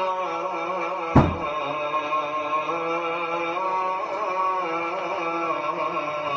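Melodic music or chant with long held, slightly wavering notes, with one sharp loud thump about a second in.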